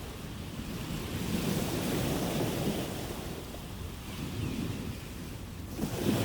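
Ocean waves washing onto a shore: the surf swells about a second in and slowly ebbs, then a fresh wave surges in near the end.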